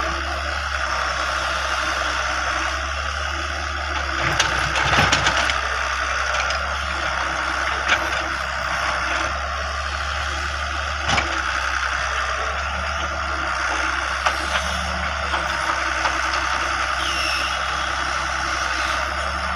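Excavator engine running steadily, with sharp knocks and rattles: a cluster about four seconds in, then single knocks now and then.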